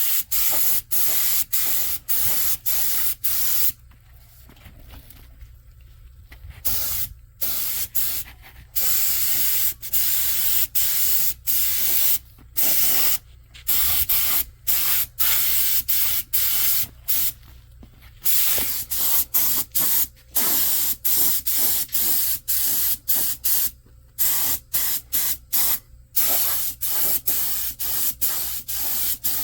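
Paint spray gun hissing as coating is sprayed onto a truck frame, the trigger pulled on and off in many short bursts with a few longer passes. A faint steady low hum runs underneath.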